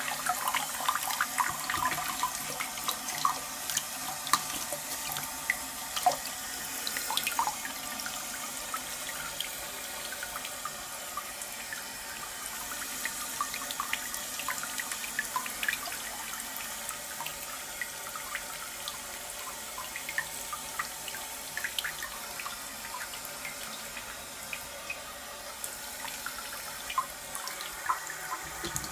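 Water running into an Armitage Shanks Sandringham close-coupled toilet cistern through its ball-float fill valve as the cistern refills, a steady splashing trickle dotted with small drips.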